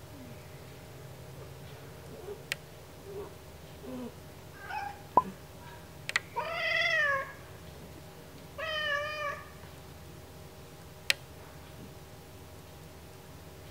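A domestic cat whining in protest at having her ears cleaned: a few short, quiet mews, then two longer whining meows, the first about six seconds in, rising then falling, the second about two seconds later with a wavering pitch. A few sharp clicks, one of them the loudest sound.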